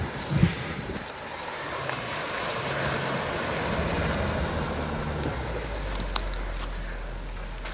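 Off-road 4WD engine running at low speed as the vehicle crawls over a rough track. A rushing noise builds over the first few seconds and then fades, and a deep rumble comes in for the last couple of seconds.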